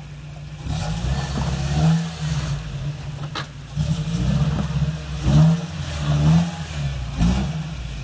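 Toyota Tacoma's 3RZ four-cylinder engine revving in repeated bursts as the truck crawls over rocks, with a single sharp knock a little past three seconds in.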